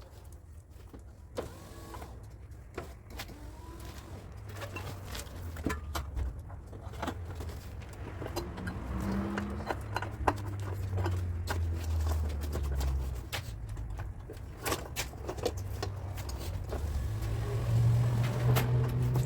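A low motor hum that shifts in pitch and grows louder near the end, with scattered sharp taps and clicks over it.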